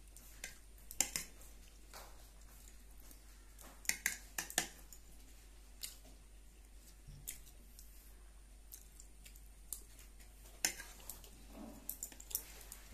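Metal spoon clicking and scraping against a ceramic plate in short, scattered taps while food is scooped up, with soft chewing between them.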